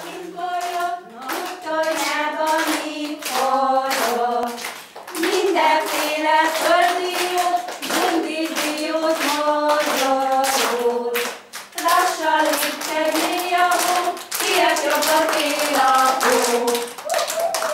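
Children singing a song together, clapping their hands in time as they sing.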